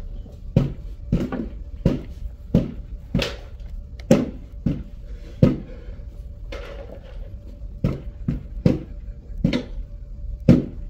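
A man sobbing in short, sharp gasping bursts, one every half second to a second, over a low steady hum.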